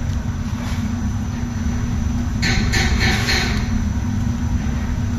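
Industrial machinery of a gasifier-fired ore drum-drying plant running with a steady low rumble. A louder burst of hissing, clattering noise comes about two and a half seconds in and lasts about a second.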